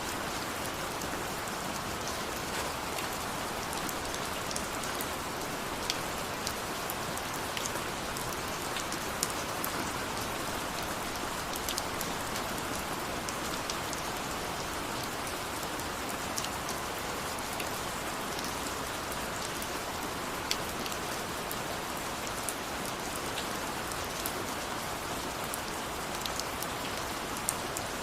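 Steady heavy rain falling on a surface, an even hiss with scattered sharp drop ticks.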